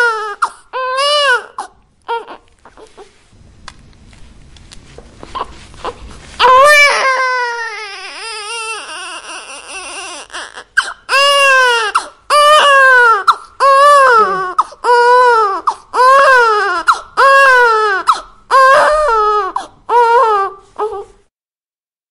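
Newborn baby crying: short wails that rise and fall in pitch, a quieter fussing pause about two seconds in, then a long wail followed by a steady run of cries about one a second, stopping just before the end.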